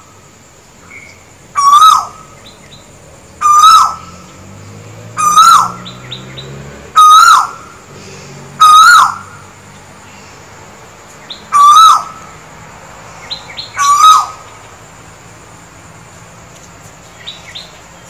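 Male Asian koel singing its 'ko-el' call: seven loud calls about two seconds apart, each a short whistle rising then dropping, with a longer gap before the sixth; the calls stop about two-thirds of the way through.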